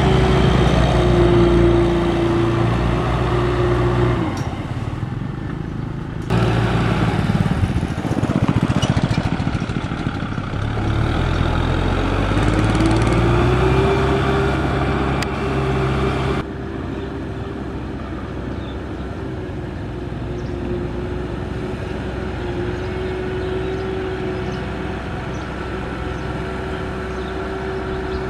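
Kubota M6040 tractor's diesel engine running under load as it pulls a loaded trailer through mud, its pitch rising as it revs up about halfway through. The sound changes abruptly twice, about six seconds in and again after sixteen seconds.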